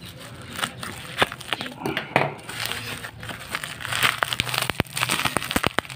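Plastic bubble-wrap packaging crinkling and crackling as it is handled, with a quick run of sharp crackles from about four seconds in.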